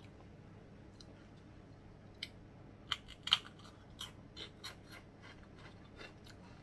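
Chewing a thin, crispy deep-fried crab-flavoured cracker: a scattering of short, sharp crunches and crackles at uneven intervals, starting about two seconds in.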